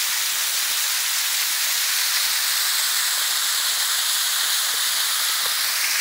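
Waterfall falling in thin streams down a rock face: a steady hiss of falling water.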